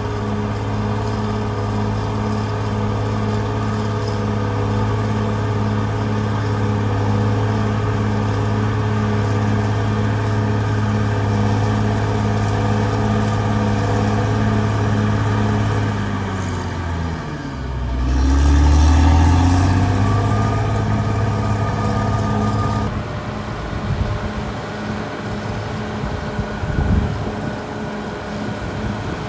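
Caterpillar D6R XL bulldozer's diesel engine running steadily. About sixteen seconds in its pitch drops, then it picks back up with a louder low rumble. Near the end it carries on, a little quieter.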